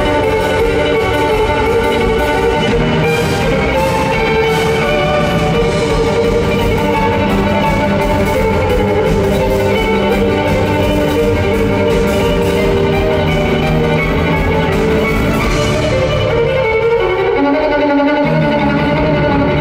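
Violin played live in concert, with backing instruments underneath.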